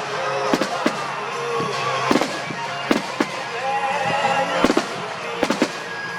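Fireworks bursting overhead: a quick, irregular string of sharp bangs, some in close pairs, over music from loudspeakers.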